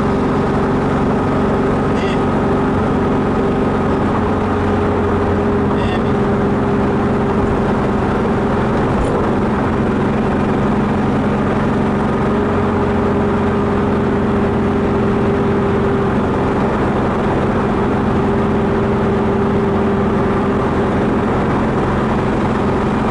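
Car interior noise at steady motorway cruising speed: a steady engine and road drone with low hum tones, heard from inside the cabin.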